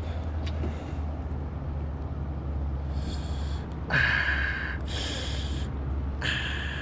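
A man breathing hard in four short, hissy breaths, the loudest about four seconds in, over a steady low wind rumble on the microphone.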